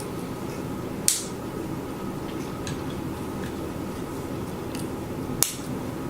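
Plastic Lego bricks being handled and snapped together: two sharp clicks, one about a second in and one near the end, with a few faint ticks of parts between. A steady low hum runs underneath.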